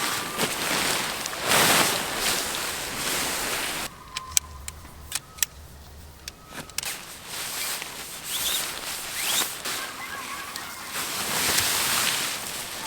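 Strong wind blowing in gusts that rise and fall. About four seconds in it drops abruptly to a quieter stretch with a few sharp clicks, then the gusting comes back.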